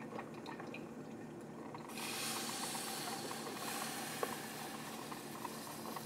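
KRUPS Simply Brew drip coffee maker brewing, with faint ticks of dripping. About two seconds in, a steady hiss sets in as the carafe is drawn out and coffee drips onto the hot warming plate: the pause-and-serve stop did not catch it because the carafe was pulled too fast.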